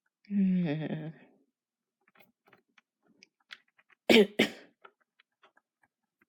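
A short hoarse, wavering voiced sound, then two sharp coughs close together about four seconds in, with faint scattered clicks in between.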